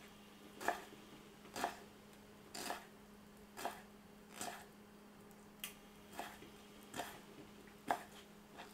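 Knife slicing stacked wood ear mushroom pieces into thin strips: about ten faint, separate cuts, roughly one a second.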